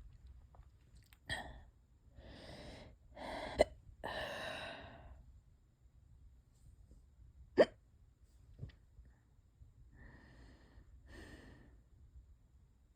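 A person hiccupping: four short, sudden hiccups, the second and third much louder than the others.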